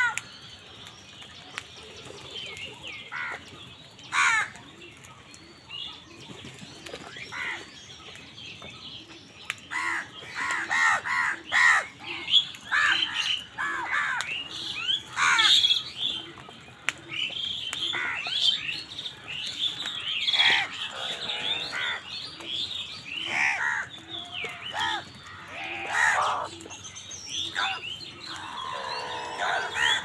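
A feeding flock of house crows cawing: many short calls, a few at first, then overlapping thickly from about ten seconds in.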